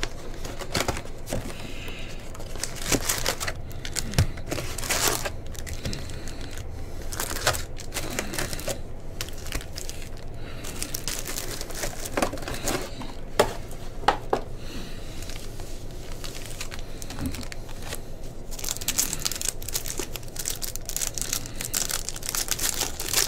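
Plastic shrink wrap and foil trading-card pack wrappers crinkling and tearing as a hobby box is unwrapped and its packs ripped open, in irregular rustles and crackles. The crinkling gets denser near the end.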